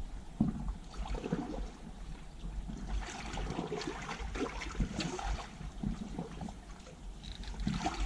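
Sea water sloshing and lapping irregularly against shoreline rocks, with a low wind rumble on the microphone.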